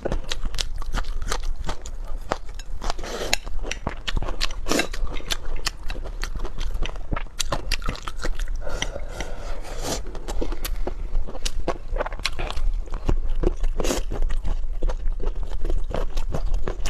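A person chewing and crunching food close to the microphone: a steady run of irregular wet clicks and crunches, over a low steady hum.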